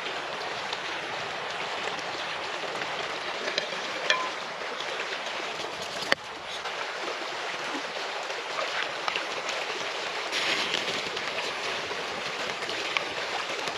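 Steady rushing of a flowing stream, with occasional light clicks and knocks of food being handled.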